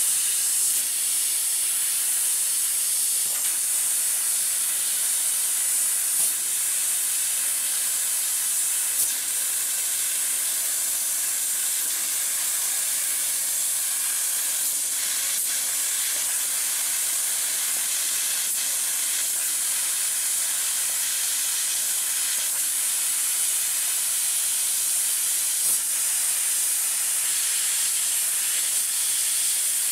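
Laser cutting machine cutting sheet metal: a steady high hiss of the cutting head's gas jet as it pierces and cuts, with a few faint clicks.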